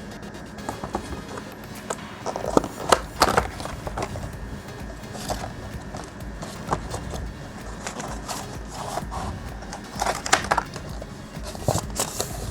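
Packaging being opened and handled by hand: irregular clicks, crinkles and scrapes, with a cluster of louder clicks about three seconds in and again near ten seconds.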